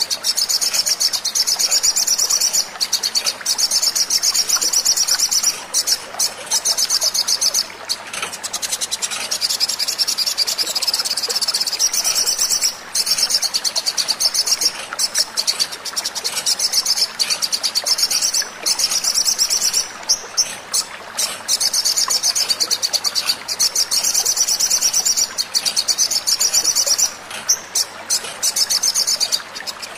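Olive-backed sunbird song: a rapid, high-pitched chattering trill that runs almost without pause, broken by a few brief gaps.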